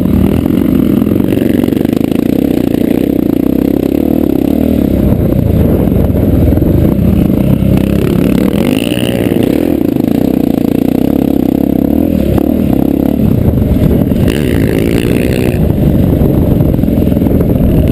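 Dirt bike's single-cylinder four-stroke engine running hard on a dirt track, the revs rising and falling repeatedly as the rider accelerates and backs off.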